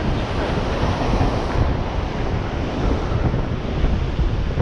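Surf breaking against the pier below, a steady wash of waves and spray, with wind buffeting the microphone.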